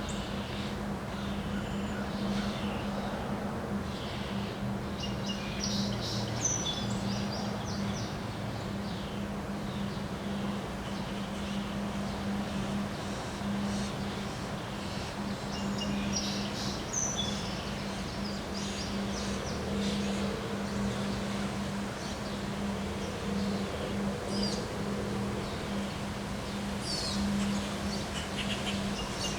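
Wind blowing steadily, with birds chirping now and then and a steady low hum underneath.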